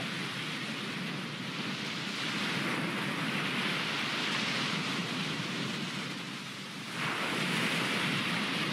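Ocean surf: waves breaking and washing up the shore in a steady rushing hiss that swells and eases, with a fresh wave breaking near the end.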